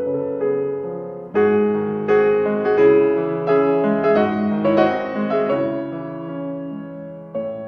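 Background piano music: soft piano notes and chords that swell into a fuller passage about a second in and thin out again near the end.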